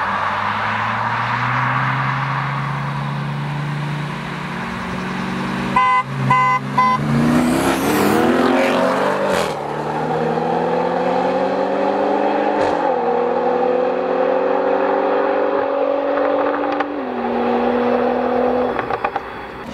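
Cars accelerating hard along a road, the engine note climbing and stepping down at each upshift, with three quick short car-horn toots about six seconds in.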